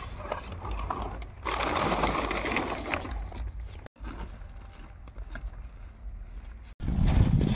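Leaves rustling as they are pressed by hand into a compost drum, loudest from about one and a half to three seconds in. After a sudden break the sound is quieter, and near the end a louder low rumble starts.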